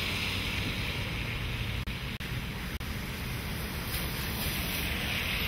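Tropical-storm wind blowing steadily and rumbling on the microphone, with the hiss of car tyres on the wet road swelling as cars pass at the start and again near the end.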